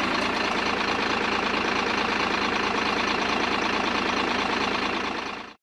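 M35 deuce-and-a-half military truck's engine running steadily, fading out near the end.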